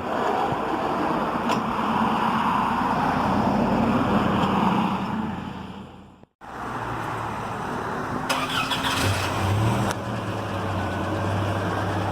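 Motor vehicle engine running, with a steady low hum under a noisy wash of sound. It cuts off abruptly about six seconds in and is followed by a similar running sound.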